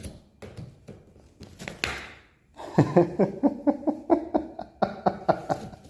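Scraping and prying at rotten wall material: scattered clicks and scrapes, then a rapid run of short pitched squeaks for about three seconds.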